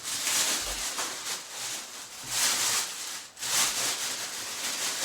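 Plastic packaging rustling and crinkling as it is handled, in several noisy swells, the loudest about two and a half seconds in and again about a second later.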